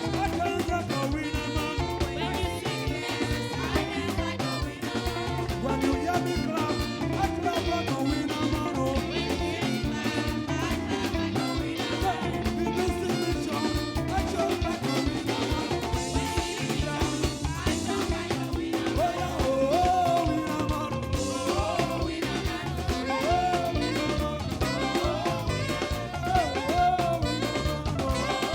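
Live church praise band playing upbeat African gospel music, with a drum kit keeping a steady driving beat under melodic lines.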